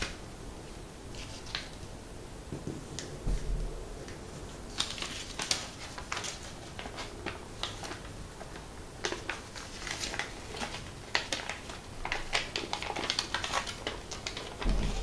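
A sheet of origami paper being handled, creased and unfolded by hand: a run of crisp paper crackles and rustles, sparse at first and busier from about five seconds in.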